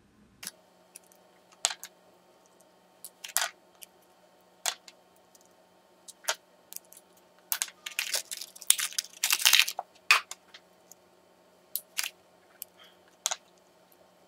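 Hands handling small plastic gel polish bottles and brush caps: scattered sharp clicks and taps as they are picked up and set down, with a busier stretch of rustling and clattering about eight to ten seconds in.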